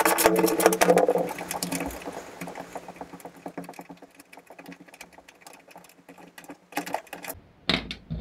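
Socket ratchet clicking rapidly while 10 mm nuts on an engine access panel are undone, thinning to sparse, fainter clicks after about a second. A few louder knocks come near the end.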